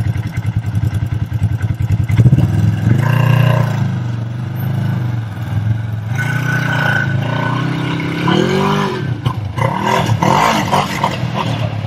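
Off-road race car engine running under way, its pitch rising and falling as it is revved up and down several times in the second half.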